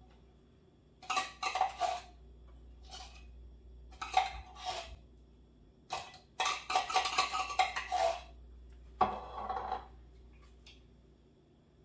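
A spoon clinking and scraping against a casserole dish in a series of short bursts, spreading the soup topping, then one longer scrape about nine seconds in.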